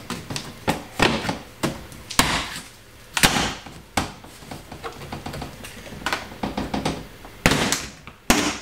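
Plastic retaining clips snapping loose one after another as the trunk-lid trim liner of a Tesla Model 3 is pulled off by hand, about ten sharp snaps at irregular intervals with rustling of the panel between them. The clips are releasing, not breaking.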